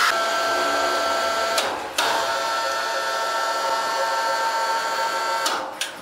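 Sawmill machinery running with a steady whine, broken briefly about two seconds in and again near the end.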